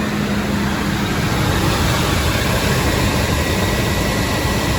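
Ford F-150's 5.4-litre Triton V8 idling steadily, running on a shorter serpentine belt that bypasses the AC compressor. A faint steady high whine comes in about two seconds in.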